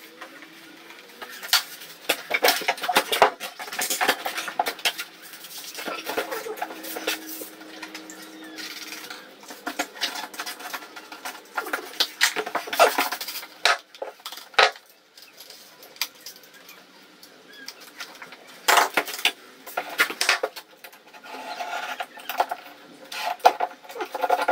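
Hand tool scraping and clicking against a papered wall: irregular short scrapes mixed with sharp taps and small metallic clinks.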